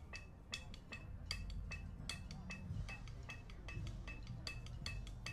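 Electronic metronome clicking steadily through a small amplifier, about three clicks a second, keeping tempo for a drumline between reps.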